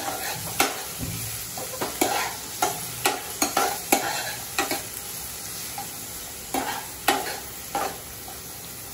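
Diced bell peppers, carrots and onion sizzling while being sautéed in hot oil in a kadhai, stirred with a metal spoon that scrapes and knocks against the pan in irregular sharp clicks.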